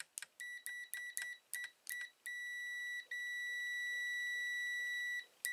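Klein MM600 multimeter's continuity beeper giving a run of short, broken beeps as the test probes make and lose contact on a wire, then a steady high beep for about three seconds, broken only once, as contact holds: the wire has continuity.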